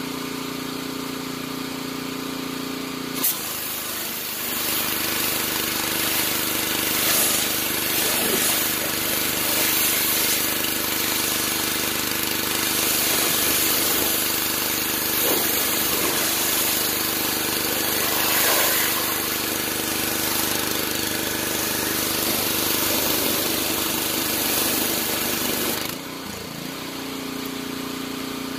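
Pressure washer running with a steady hum. About three seconds in, the trigger clicks and the high-pressure water jet hisses loudly against a car's body for about twenty seconds. The spray then cuts off, leaving the machine's hum.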